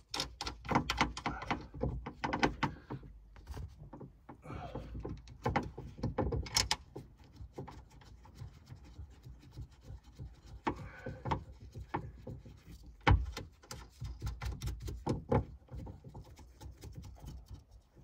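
Irregular clicks, taps and rattles of a replacement boot lock latch and its bolts being handled and fitted by hand to the underside of a Volkswagen Passat B8 estate's tailgate, with one sharper knock about thirteen seconds in.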